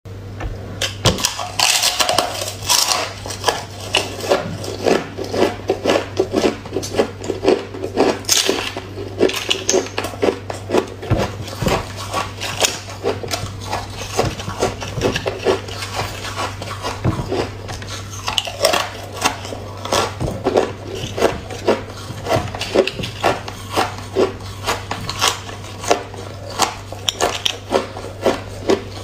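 Ice crunching as thick slabs of freezer ice are bitten and chewed: a fast, irregular run of sharp crunches, several a second, over a steady low hum.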